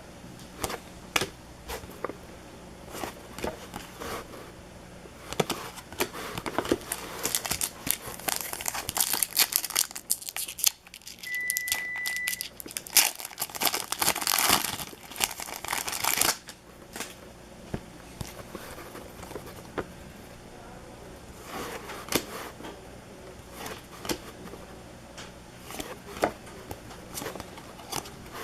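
Plastic trading-card pack wrappers being torn open and crinkled, with scattered clicks and rustles as cards are handled; the tearing and crinkling is densest in the middle of the stretch. A brief high beep sounds midway.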